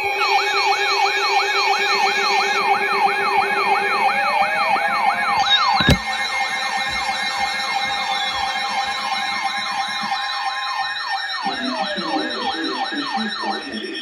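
Electronic siren in a fast yelp, about four falling sweeps a second, with a slower siren tone gliding up underneath and later sliding back down. The yelp breaks off near the end.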